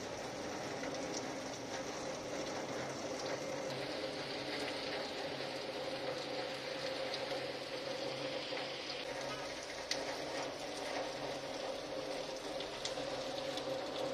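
Steady heavy rain falling, an even hiss of rain on roofs and pavement, with a few faint ticks of drops here and there.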